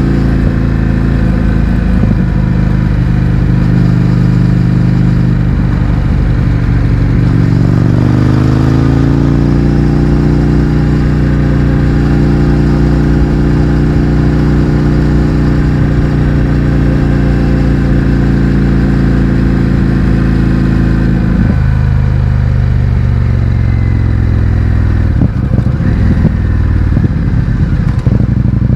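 Indian FTR 1200's V-twin engine running through an Akrapovic exhaust with the baffles removed, heard from on the bike while riding. About eight seconds in the engine note dips and then climbs as the bike accelerates, holds steady, and falls sharply a little past twenty seconds as the throttle is closed.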